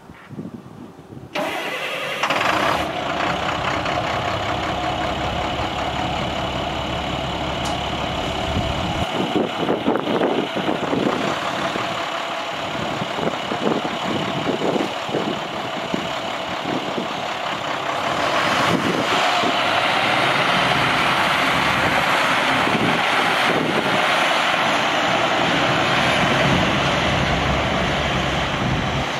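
International DT570 9.3 L inline-six turbo diesel of a 2005 International 7400 dump truck starting a little over a second in, then running steadily. It grows somewhat louder in the last third.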